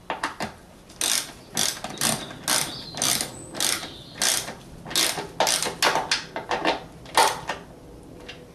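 Socket ratchet clicking through short back-and-forth strokes, about two a second, as a fixing bolt is tightened; it stops about a second before the end.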